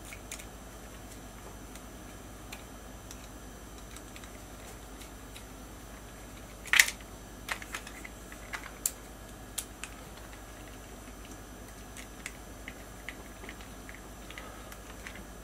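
Light clicks and ticks of a hex key and screwdriver working metal bolts into a 3D-printed PLA block, over a steady faint hiss. The loudest click comes about seven seconds in, with a cluster of smaller clicks over the next few seconds and only faint ticks after.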